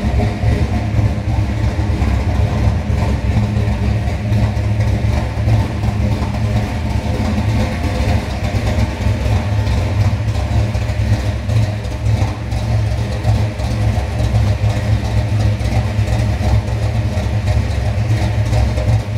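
1961 Chevrolet Bel Air's 348 V8, with aluminum 409 heads and dual four-barrel carburetors, idling steadily.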